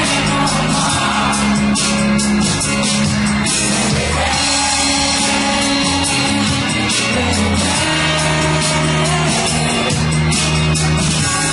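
Pop song playing from a backing track with a steady beat, with a man singing live over it into a handheld microphone.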